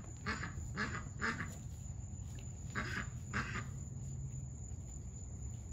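A bird calling in the background: a run of short calls, three in the first second and a half and two more about three seconds in, over a low steady hum.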